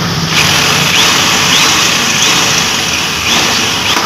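Electric drill boring a hole through the metal inner door panel of a car, a steady high grinding whine that starts suddenly just after the start and stops right at the end.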